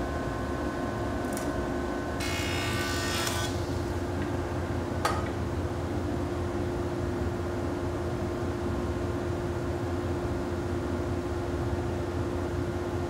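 Jointer running while a maple board is fed across its cutterhead, giving a steady machine hum and cutting noise. A short, harsher burst comes about two seconds in and a sharp click about five seconds in.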